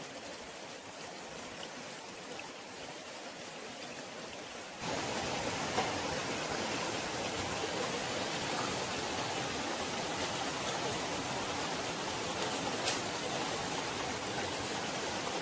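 Steady rushing of a shallow forest stream, stepping up abruptly to a louder level about five seconds in.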